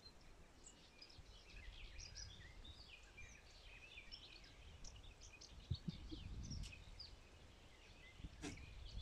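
Faint birdsong: many short chirps and trills from several small birds, overlapping, over a low rumble, with a couple of soft knocks about six seconds in.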